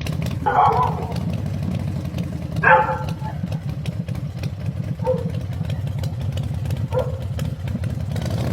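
A steady, pulsing engine-like rumble, as of a motor idling, with four short pitched cries over it, each under a second long.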